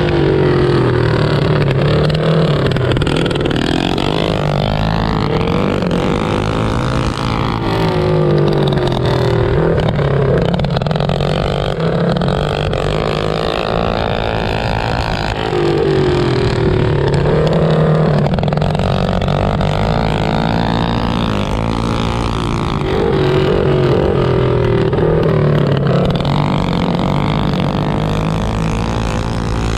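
Several mini bike engines racing, each revving up and down so the pitch keeps rising and falling. The sound swells loudest about every eight seconds.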